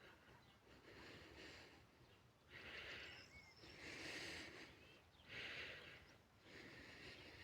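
Quiet spring countryside ambience: a series of soft breathy puffs about every second and a half, with faint short bird chirps between them.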